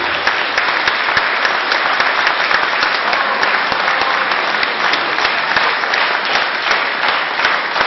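Audience applauding: dense, steady clapping from a large crowd, right after the music ends.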